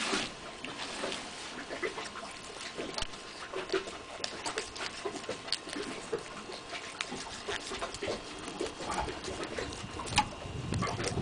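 Irregular soft clicks, scrapes and knocks of a knife cutting into a striped bass and of the fish being shifted on wooden dock boards.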